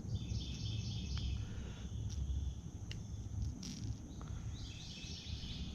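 Insects chirping in high, repeated phrases over a low rumble of wind or handling noise on the microphone, with a few faint clicks.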